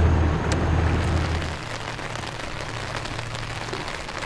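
Low boat-engine drone that cuts off about one and a half seconds in, giving way to rain falling on the river and pattering on an umbrella overhead.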